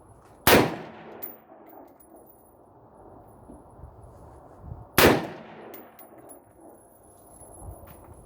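Two single gunshots at a shooting range, about four and a half seconds apart, each a sharp crack followed by a short echoing tail.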